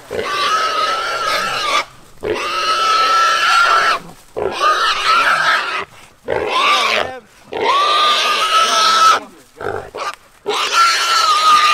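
A caught feral hog squealing loudly, about six long squeals one after another with short breaks between, as it is held down and its legs are strapped.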